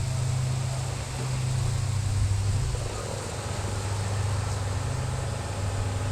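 Motor of dryer vent cleaning equipment running steadily with a low hum and an airy rush, its loudness swelling and easing slightly as the vent is worked.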